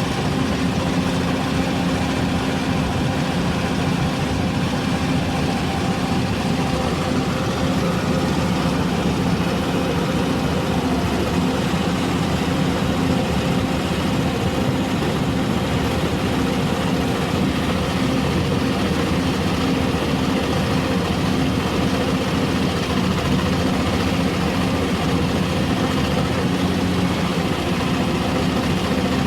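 Hyundai R480LC excavator's diesel engine running steadily at idle, in a video whose title puts its misfiring down to an injector problem.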